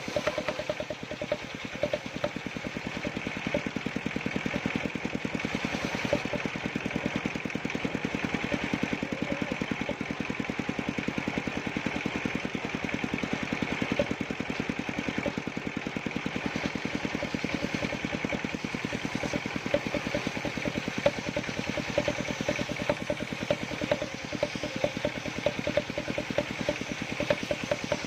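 Combustion engine running steadily with a rapid, even beat that holds constant throughout.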